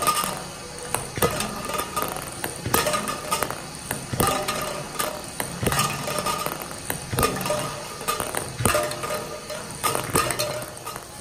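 Background music with a regular beat, with sharp clicks and clinks recurring about every one and a half seconds, as a ping pong ball runs through a metal construction-set ball machine.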